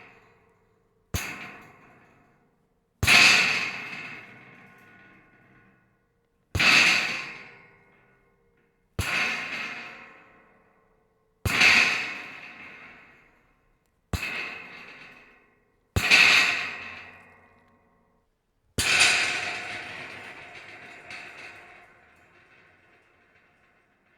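Scrap metal rattling in about eight separate bursts a few seconds apart, each starting sharply and dying away over a second or two; the last burst, near the end, rings on the longest.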